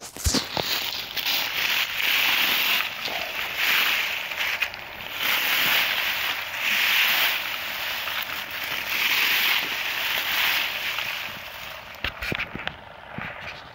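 Dry, rotting pea stalks rustling and swishing as they are brushed through, in repeated swells about every second and a half, dying away near the end into a few light crackles.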